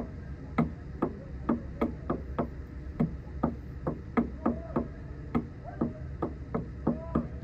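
Fast, sharp, irregular breaths, about two or three a second, with short strained moans: a man hyperventilating from cold shock while sitting in an ice bath.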